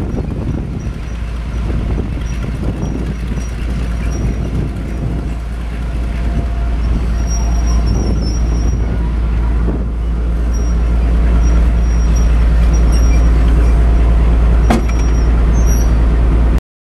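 Class 42 Warship diesel-hydraulic locomotive D832 Onslaught, with twin Maybach diesel engines, running as it draws slowly alongside at close range. The deep rumble grows louder as the engine room comes level, with one sharp knock near the end before the sound cuts off suddenly.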